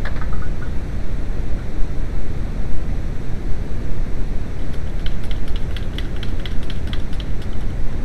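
Steady low rumbling noise, with a quick run of light ticks in the second half.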